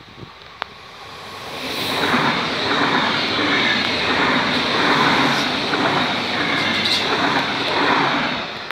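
Red electric regional multiple-unit train passing close by at speed, its wheels clattering in a regular rhythm over the rails. It swells in over the first two seconds and falls away near the end as the last car goes by.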